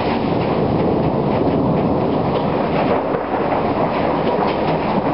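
Thunder rumbling on steadily after a nearby lightning strike, a dense low roar with no clear break, with rain in the background.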